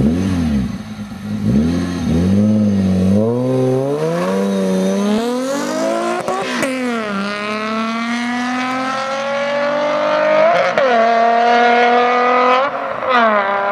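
Ford Probe GT's 2.5-litre V6 exhaust, revved in a few quick blips, then accelerating hard with the pitch climbing through each gear and dropping at three upshifts.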